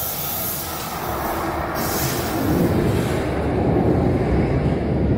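Underground tram pulling into a station platform. The rumble of its wheels on the rails grows steadily louder as it comes in and passes close.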